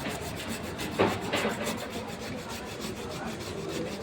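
Fast, even rasping or rubbing, about six strokes a second, with a louder short knock about a second in.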